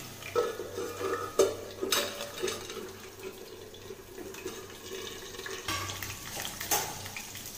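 Potato slices frying in hot oil in a pan, a steady sizzle, with several sharp clinks of a steel plate lid against the pan.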